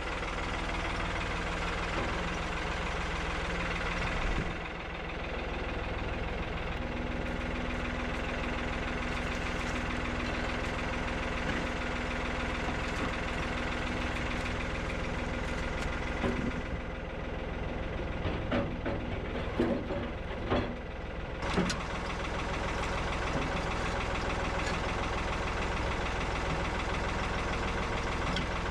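Tractor engine idling steadily, with a few short knocks and clunks partway through.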